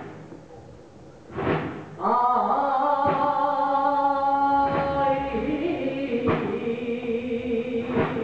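A male cantaor singing a saeta, the flamenco song of Holy Week: a long, ornamented held phrase that comes in about two seconds in and wavers lower near the end. Single drum beats fall slowly and evenly, about every one and a half seconds.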